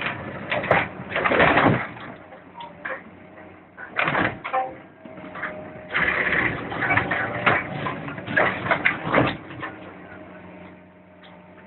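Hydraulic demolition shear on a crawler excavator biting into and tearing the steel hull of an old deck barge: metal crunching, screeching and banging in irregular bursts over the excavator's steady engine hum, easing off near the end.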